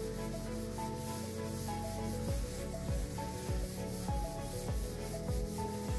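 Cloth shop towel rubbing and spreading gel stain over a wooden table top, under background music with held notes and a bass beat that comes in about two seconds in.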